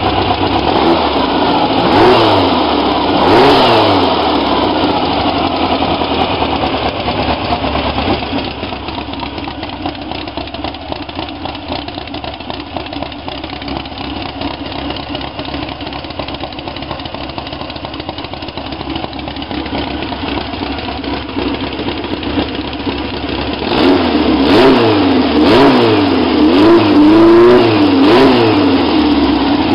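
A 1915cc air-cooled Volkswagen flat-four engine running on an engine run stand, revved by hand at the carburettor. It blips up and back twice a couple of seconds in, settles to a steadier, quieter idle through the middle, then is revved up and down several times in quick succession near the end.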